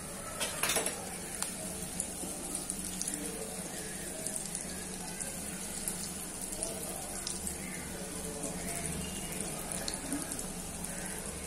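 Chicken meatballs deep-frying in hot oil in an aluminium kadai: a steady sizzle and bubbling with many small pops and ticks. There is a brief knock about half a second in.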